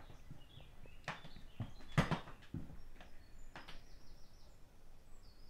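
A few knocks and footfalls, the loudest about two seconds in, as a door is pushed open and someone steps onto a wooden floor. Small birds chirp faintly, with a quick run of chirps about three and a half seconds in and more near the end.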